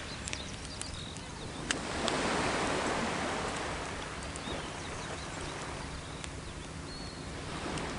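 Small sea waves washing on the shore, swelling about two seconds in and then ebbing, with a few sharp crackles from a wood campfire.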